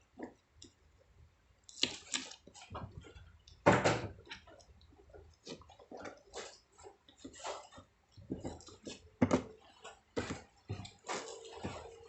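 Irregular rustling, crinkling and clicking of small items and packaging being handled, in uneven bursts, the loudest about four seconds in.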